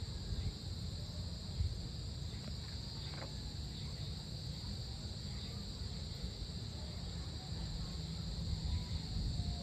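Evening chorus of insects trilling steadily in high, unbroken bands, over a constant low rumble of outdoor background noise.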